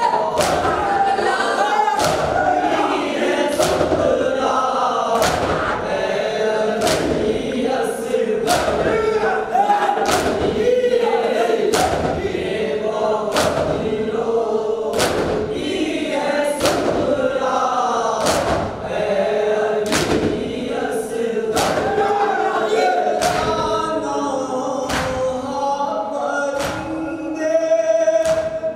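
Men's chorus chanting a noha, a Shia lament, in unison, over loud rhythmic chest-beating (matam). The chest slaps land together, a little more than one a second, throughout.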